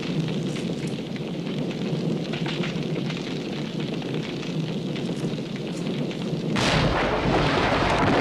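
Action-film sound effects: a steady low rumble with scattered crackles, then a sudden louder rush of noise about six and a half seconds in that carries on, the kind of sound a blast or fire makes.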